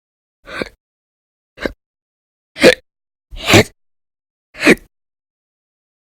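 A woman hiccuping: five short, sharp hiccups about a second apart.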